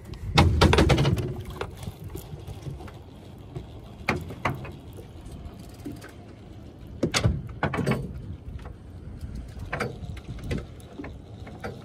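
Knocks and thumps from handling a fishing rod and conventional reel against a boat's rail as the line is dropped, over a low rumble. The loudest knock comes near the start, a pair about a third of the way in, a pair past halfway, and a couple more near the end.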